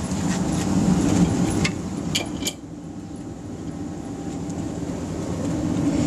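Blower-fed waste-oil burner firing into a brick furnace, a steady low rush of forced air and flame. It drops back about two and a half seconds in, then slowly builds again as the burner is ramped up. A few sharp clinks come around two seconds in.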